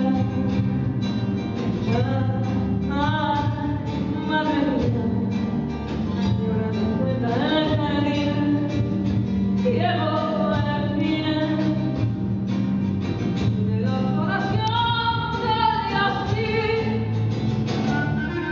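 Live music: a woman singing long, pitch-bending vocal lines into a microphone, accompanied by a band with an upright double bass.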